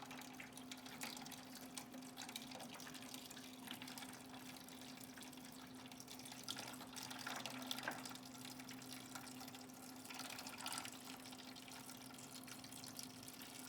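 Faint trickling and dripping water over a steady low electrical hum.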